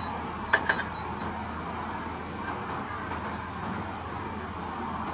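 A car idling with a steady low hum, heard from inside the cabin, with a couple of quick clicks about half a second in and a thin, steady high-pitched whine from then on.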